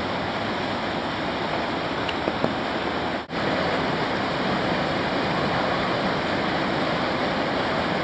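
Steady rushing of whitewater at a standing river wave, with a split-second dropout about three seconds in.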